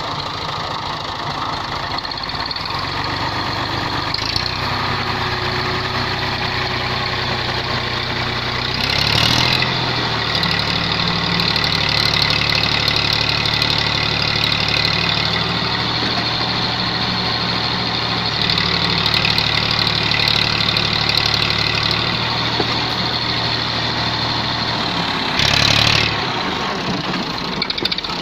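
Massey Ferguson MF240 tractor's three-cylinder diesel engine running under load, pulling a load of fodder bundles. The revs pick up about nine seconds in and hold, with a short loud surge near the end before the engine note drops.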